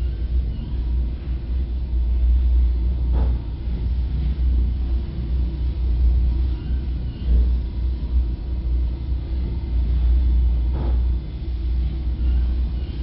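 A steady low rumble, with two faint knocks, the second about eight seconds after the first.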